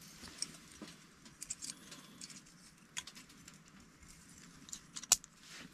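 Light clinks and scrapes of stainless steel camp cookware being handled, with one sharper metal click about five seconds in.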